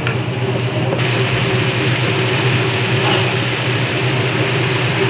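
Restaurant kitchen noise: a steady mechanical hum with a rattle, under the hiss of jerk shrimp and vegetables cooking in a stainless steel pan on a gas range. The hiss grows louder about a second in.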